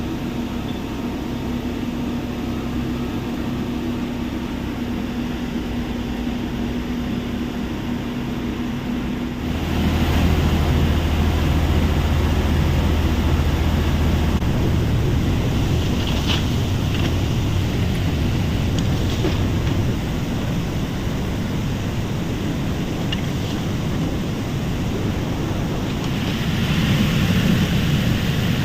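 Heavy machinery running at a stone crushing plant, a steady mechanical drone with an engine hum. About ten seconds in it gets louder and a deeper drone holds for several seconds, and it swells again near the end.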